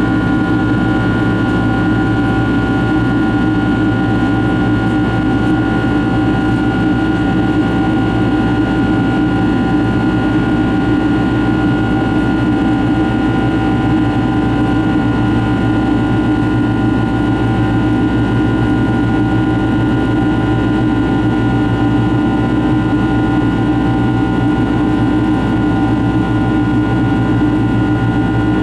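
Rolls-Royce RB211 turbofan engines of a Boeing 767-300 running steadily in flight, heard from inside the cabin over the wing: an even rush of airflow and engine noise with several steady tones held on top, unchanging throughout.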